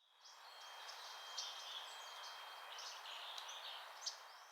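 Faint outdoor birdsong: several small birds chirping and trilling in quick succession over a soft steady hiss, with a thin steady high tone that stops a little past halfway.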